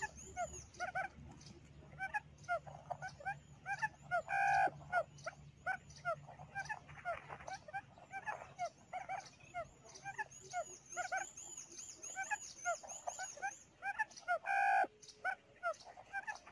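Quail calls played from a speaker as a trapping lure: a quick, steady run of short chirps, with a louder, harsher call twice, about ten seconds apart, repeating like a recording on a loop.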